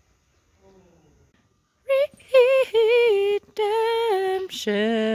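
A woman's voice singing a wordless tune, starting about two seconds in: a few held, wavering notes, then a lower held note near the end.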